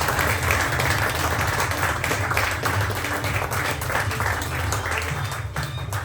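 Audience applauding, many hands clapping over background music, the clapping thinning out near the end.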